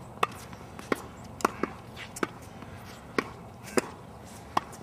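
Tennis ball struck by a racket and bouncing on a hard court: about eight sharp pops at uneven gaps of half a second to a second.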